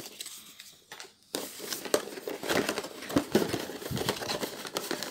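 Cardboard packaging being handled and opened by hand: irregular rustling, scraping and light knocks, starting about a second in.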